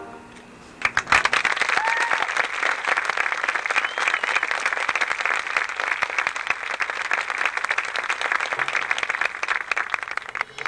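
Audience applauding, starting about a second in after the music stops and dying out near the end.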